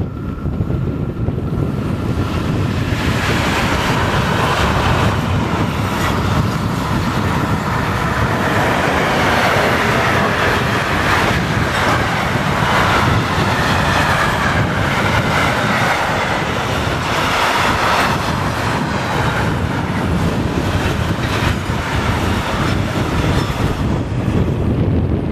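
Two trains passing on a double-track line: a freight train hauled by a Bombardier Traxx class 185 electric locomotive and a yellow track-maintenance train with a tamping machine. The rolling wheels make a continuous noise with many short clicks that swells about three seconds in and eases near the end, and wind buffets the microphone.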